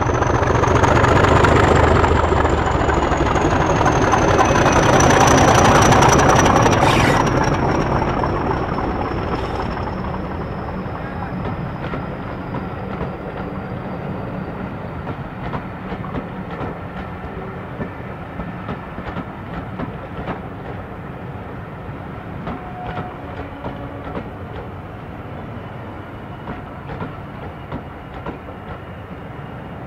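Heritage diesel train on the move: engine and running noise loudest in the first seven seconds, with a high whine that slowly falls in pitch. As it fades away the wheels click steadily over the rail joints.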